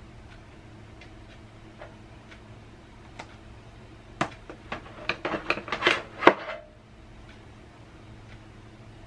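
A metal spoon and dishes clinking and clattering for about two seconds in the middle, with one sharp knock the loudest, over faint, evenly spaced ticking.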